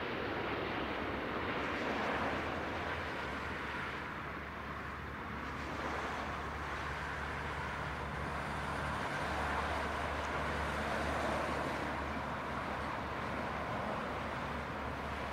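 Jet airliner engines heard from a distance, a steady noise with no sharp events.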